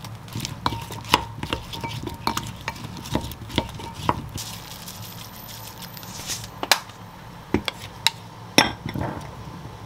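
Wooden spoon stirring seasoned cucumber slices in a glass mixing bowl, with irregular clicks and knocks of the spoon against the glass, the loudest near the end.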